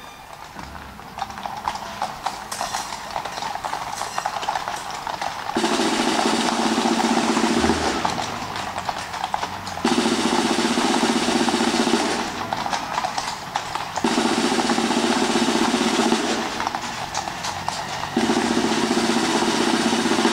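Horses' hooves clip-clopping on cobblestones, then four drum rolls from a military band, each about two seconds long with a short pause between them.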